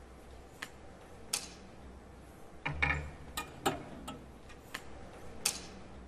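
A scattering of light, sharp clicks and knocks over a quiet hum. There is a small cluster with a dull knock about three seconds in, and another sharp click about five and a half seconds in.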